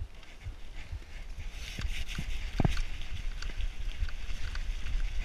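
Mountain bike rolling down a rough dirt forest trail, heard from a camera riding on the rider: tyre noise on dirt with knocks and rattles as it runs over bumps and roots. The noise builds from about a second and a half in, with a sharp knock near the middle.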